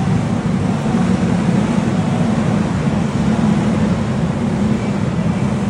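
A steady low rumble from small go-kart engines running in the enclosed barn, with no single engine standing out and no sudden events.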